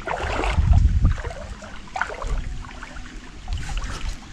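Soft water sounds at the edge of a reed bed, with rod-handling noise and a low rumble on the microphone about a second in, during a short underhand cast.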